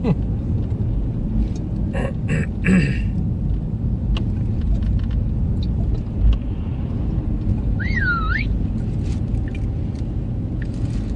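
Steady low rumble of road and tyre noise inside the cabin of a moving Honda Accord Hybrid, with a few faint clicks. About eight seconds in, a brief warbling chirp.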